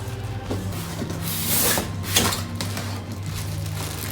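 Background music with steady low notes, over rustling and a sharp knock or two from handling the keyboard's packaging during unboxing.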